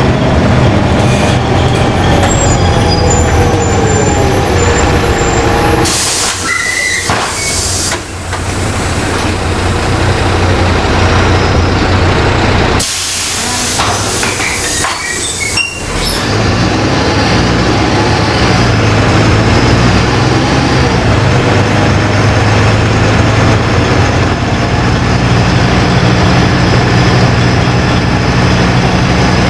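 LiAZ-5292.20 city bus heard from inside: the drivetrain whine falls as the bus slows. Two loud bursts of compressed-air hiss from the bus's pneumatic system come about 6 seconds in and about 13 seconds in, the second lasting about three seconds. The engine runs steadily underneath throughout.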